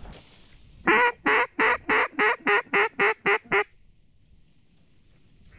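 Mallard hen quacks blown on a hunter's duck call close by: a quick run of about ten loud, evenly spaced quacks, about four a second, the first the longest, lasting under three seconds.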